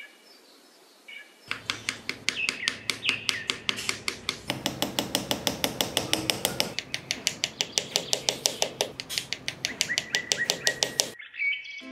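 Small mallet tapping thin sticks down into sand: quick, evenly spaced taps that begin about a second and a half in and stop shortly before the end.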